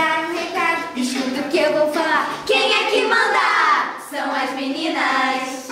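Young voices, girls and children among them, singing a song together, with long held notes, one of them wavering in pitch near the middle.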